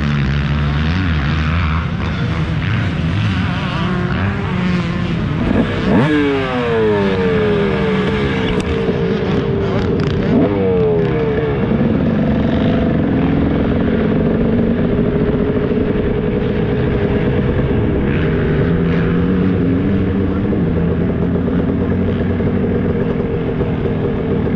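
300cc two-stroke motocross bike engine running at low throttle as it rides slowly along, its pitch rising and falling a couple of times between about six and twelve seconds in.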